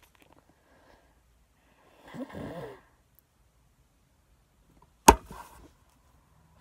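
Quiet room tone, broken about two seconds in by a short wordless vocal sound of under a second. Then, about five seconds in, comes a single sharp knock, the loudest sound, with brief rustling after it.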